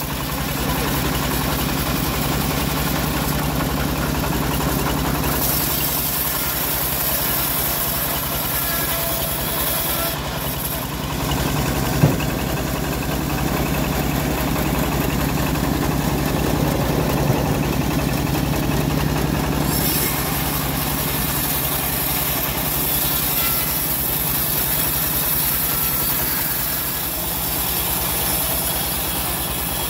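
Engine driving a homemade bandsaw mill, running steadily as a teak log is fed through the blade. A single sharp knock about twelve seconds in.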